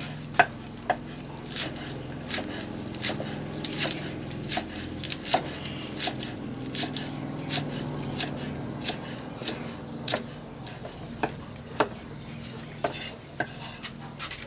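Cleaver chopping green onions on a thick round wooden chopping block: a steady series of sharp knocks of the blade on the wood, about one every half second to second.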